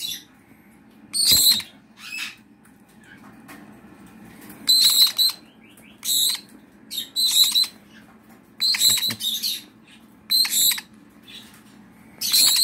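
Young Senegal parrots and conures giving short, high-pitched chirping calls over and over, a burst about every second or two.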